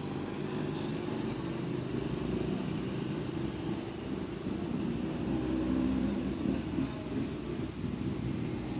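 Steady low rumble of a motor vehicle engine, swelling slightly a little past the middle.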